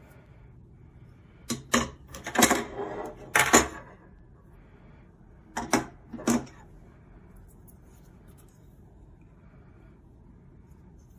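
Black metal legs of a folding mini tripod table base clicking and clattering as they are swung open at their pivot joints and handled against a wooden tabletop: a run of clacks in the first few seconds, then two sharp knocks about six seconds in.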